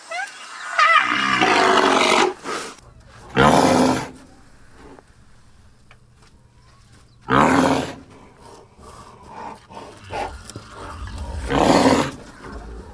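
Rhinoceros calling: a drawn-out pitched bellow about a second in, then three short loud calls spaced about four seconds apart.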